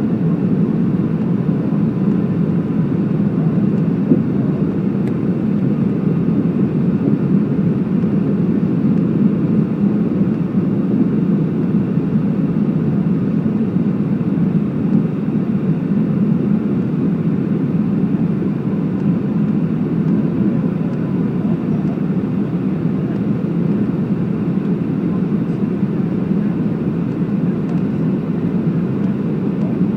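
Steady roar of engine and airflow noise inside the cabin of a Boeing 757-200 on its landing approach, heaviest in the low range, with a faint steady whine above it.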